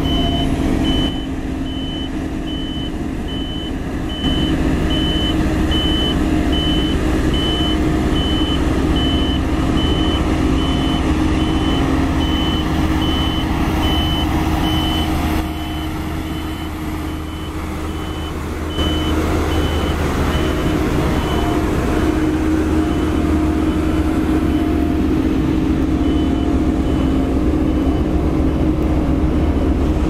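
Heavy diesel engine running steadily while a vehicle's reversing alarm beeps over and over at an even pace. The beeping stops for a few seconds about three-quarters of the way through, then resumes.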